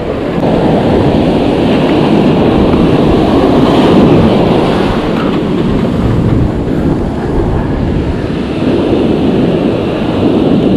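Steady heavy wind rumble on the microphone over surf breaking and washing up the beach, swelling and easing slightly.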